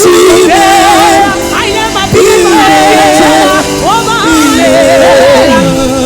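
Live gospel music: a lead singer's melismatic, wavering vocal line over sustained instrumental accompaniment.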